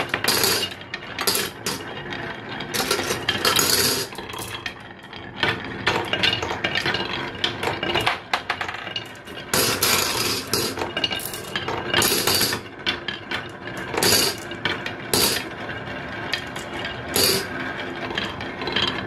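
Glass marbles rolling down a wooden serpentine marble track, rattling in the carved grooves with many irregular clicks and clacks as they bang against the wooden bends.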